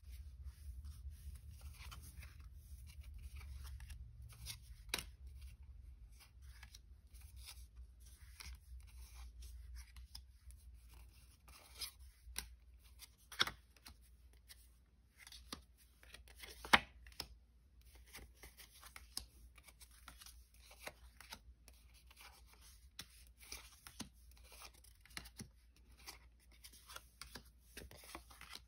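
Pokémon trading cards and their foil booster-pack wrappers being handled: a steady stream of small crinkles, tearing and rustling, with two sharper clicks about halfway through.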